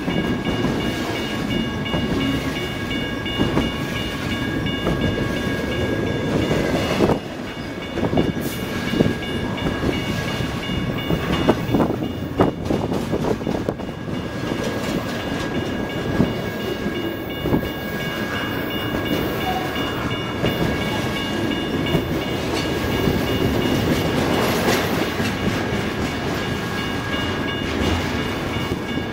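BNSF double-stack intermodal freight train rolling past close by: a continuous rumble of wheels on rail, broken by irregular clicks and clanks as the well cars pass over rail joints, with a thin steady high tone running through it.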